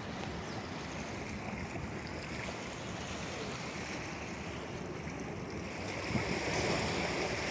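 Steady wind and sea noise on a rocky shoreline, growing a little louder near the end.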